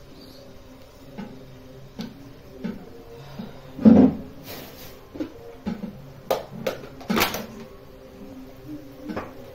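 Kitchen handling noise: scattered knocks and clicks of utensils and cookware around a pan on a gas stove, with one heavy thump about four seconds in and a quick run of sharp clicks a few seconds later.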